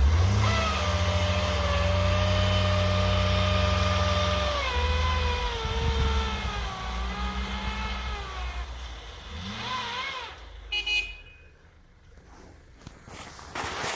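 Vehicle engine running hard under load, with a high whine that follows the revs. The revs drop about four seconds in, pick up briefly near ten seconds, then die away.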